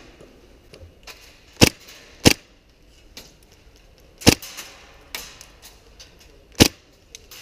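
Airsoft guns firing single shots: four sharp, loud cracks, the first two close together and the others about two seconds apart, with fainter clicks in between.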